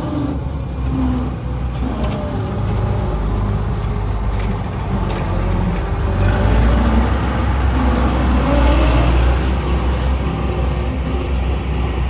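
Heavy farm diesel engine running steadily, swelling louder for a few seconds about halfway through.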